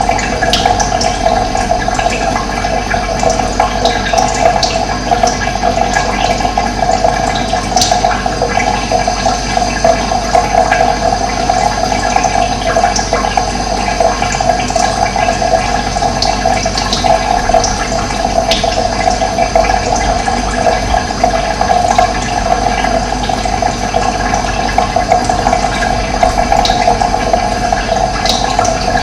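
Steady rushing of running water, with a few brief high bird chirps here and there.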